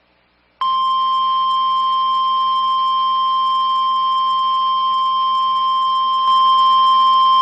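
NOAA Weather Radio 1050 Hz warning alarm tone: one steady, high-pitched sine tone that starts about half a second in and holds unbroken, a little louder near the end. It marks the start of a National Weather Service warning broadcast, here a flash flood warning.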